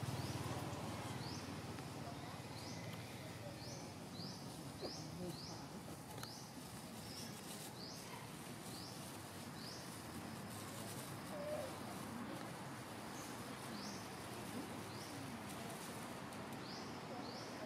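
Faint outdoor wildlife ambience with runs of short, high, rising chirps, about two a second, pausing a couple of times.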